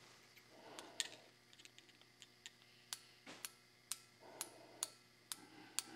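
Faint, irregular clicks, about a dozen, as ground steel spacers and a digital Mitutoyo micrometer are handled, with a spacer being closed in the micrometer's jaws to measure its thickness.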